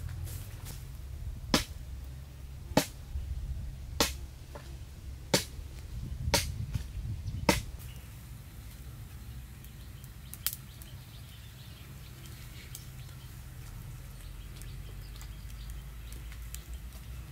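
Wood campfire burning, with sharp pops about every second through the first half and a single pop later, over a low steady rush.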